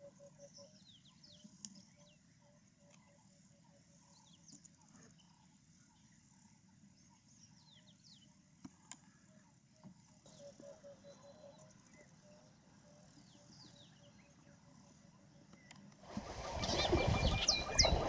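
Faint African bush ambience: scattered short, high, falling bird chirps over a soft run of repeated low piping notes. About two seconds before the end the sound cuts to a much louder mix of many bird calls over low rumbling noise.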